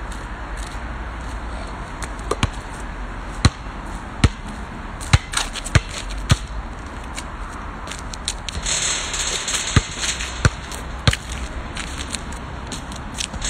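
A basketball bouncing on an outdoor tarmac court: a string of sharp bounces at uneven intervals, the loudest bunched in the first half.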